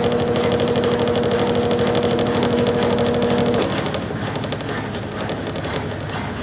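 Brastemp BWC10 top-loading washing machine rinsing a load: its motor runs with a steady hum over a fast even rattle, and the hum cuts off a little past halfway, leaving a quieter rough churning noise.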